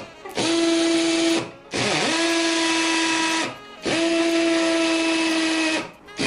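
Nanwei 48VF cordless drill with a small masonry bit drilling shallow marking holes into a concrete wall, in three runs of one to two seconds. The motor whine rises in pitch as it spins up at the start of each run.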